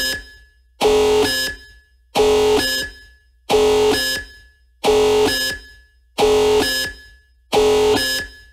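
Electronic warning-alarm sound effect: a harsh buzzing tone sounding in bursts of about a second, each starting sharply and fading, repeating roughly every 1.4 seconds.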